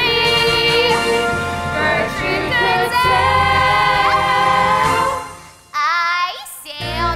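Musical-theatre song: a female chorus singing over instrumental accompaniment. About five and a half seconds in, the music briefly drops away, leaving a single vocal line sliding up and down in pitch, before the accompaniment comes back in near the end.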